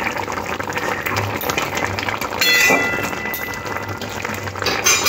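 Thick prawn curry bubbling and sizzling in an aluminium kadai, a steady crackle of small pops. A brief ringing clink sounds about two and a half seconds in.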